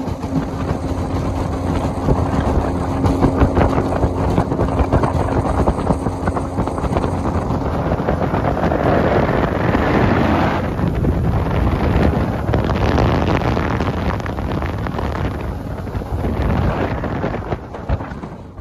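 Motorboat running across open water: a steady engine drone with heavy wind buffeting the microphone.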